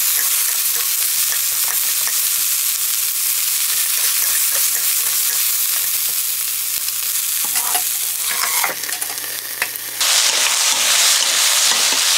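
Eggplant, onion and green pepper sizzling in oil in a nonstick wok while being stirred with wooden spatulas, a steady frying hiss. A few light taps of the wood against the pan come near the end, where the sizzle dips briefly before returning louder.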